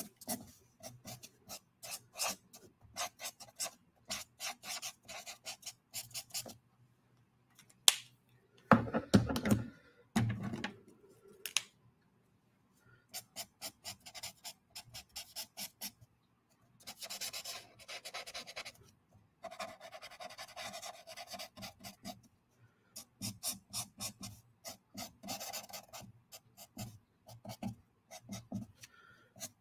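Copic marker nib scratching and rubbing over drawing paper in many quick short strokes, with a few longer continuous shading strokes in the second half, as grey shading is laid in. A couple of low dull bumps come about nine and ten seconds in.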